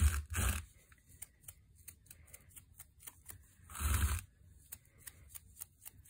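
A paint-loaded toothbrush having its bristles flicked with a blade to spatter paint, giving a run of quick, light ticks. Louder rustling scuffs come right at the start, just after, and about four seconds in, as the cement rock is handled on the paper-covered table.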